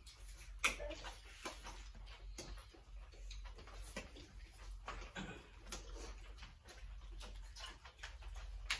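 Spoons and serving utensils clinking and scraping against metal bowls and plates in an irregular scatter of sharp clicks, the loudest a little under a second in.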